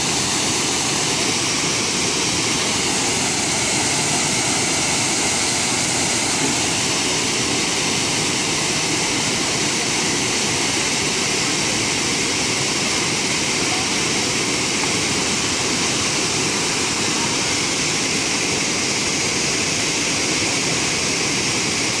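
A waterfall rushing: a steady, even noise of falling water that does not change.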